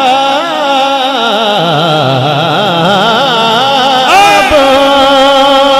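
Male naat reciter singing an Urdu devotional verse, drawing a long wavering, ornamented note, then starting a new phrase a little after four seconds in and holding it on steadier pitches.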